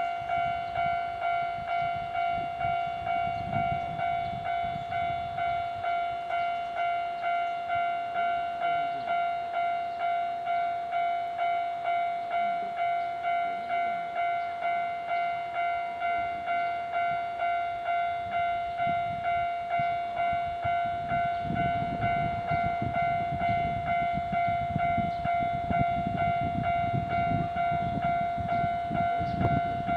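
Japanese level crossing's electronic warning bell ringing continuously in a fast, even ding-ding rhythm while the barriers are down. From about twenty seconds in, the low rumble of a Wakayama Electric Railway train grows underneath the bell.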